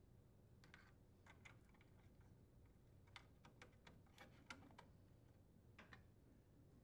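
Faint, irregular small plastic clicks of wire connectors being pushed onto the terminals of a microwave's main control board, over near silence.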